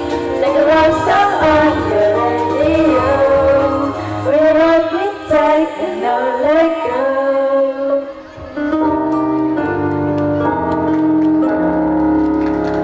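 Girls' choir singing. The melody moves for the first several seconds, dips briefly about eight seconds in, and gives way to long held chords.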